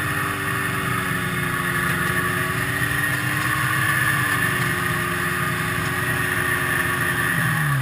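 1974 Rupp Nitro 340 snowmobile's two-stroke engine running at low speed as the sled creeps along, its note rising a little about four seconds in. Near the end the pitch starts to fall as the engine winds down.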